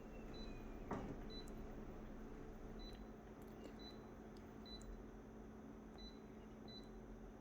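Faint short high-pitched electronic beeps recurring at irregular intervals over quiet room hiss, with a single click about a second in.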